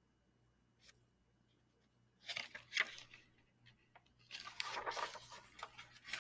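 Paper rustling and crinkling, twice, as the pages of a picture book are handled and turned.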